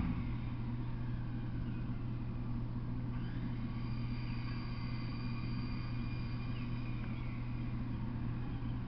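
Steady low hum over a constant background noise, with a few faint short high chirps scattered through it.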